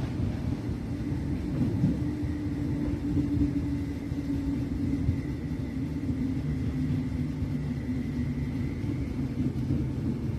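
Interior running noise of a Merseyrail Class 507 electric multiple unit in motion: a steady rumble with a steady droning tone, and a faint higher whine that grows stronger in the second half.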